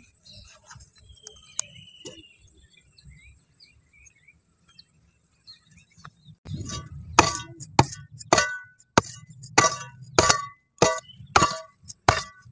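A near-quiet stretch with faint small rustles, then from about six seconds in a rapid, irregular run of sharp glassy clinks, roughly two a second.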